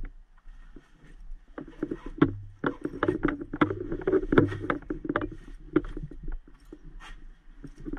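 Medical gear being handled in a bag and compartment: irregular clicks, knocks and rustling, busiest in the middle, over a low steady hum.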